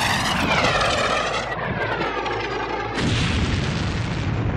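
Missiles in flight with a whistling whine that falls in pitch as they pass, then about three seconds in a sudden blast that runs on as a heavy rumble.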